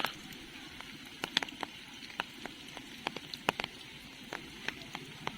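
Scattered raindrops tapping irregularly on an umbrella, a few sharp ticks a second over a faint steady rain hiss.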